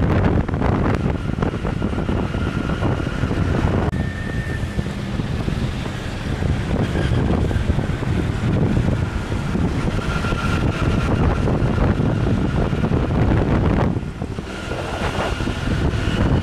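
Wind buffeting the microphone on a moving motorbike taxi, over the motorbike's engine and surrounding traffic noise.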